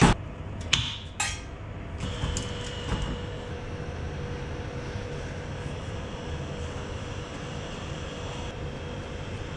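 A few sharp clicks and knocks in the first second or so as cables are handled, then a steady mechanical drone with a faint, even hum through the rest.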